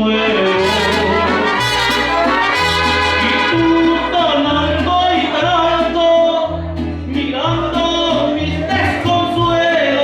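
Mariachi band playing an instrumental passage: a melody over a bass line that changes note about every second.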